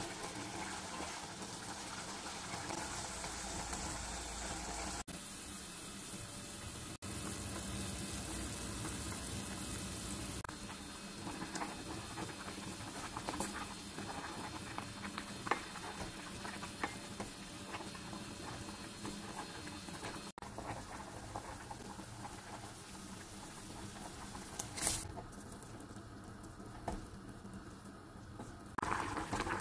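Chicken and tomato sauce bubbling and simmering in a stainless steel pot, with a wooden spoon stirring through it and knocking against the pot.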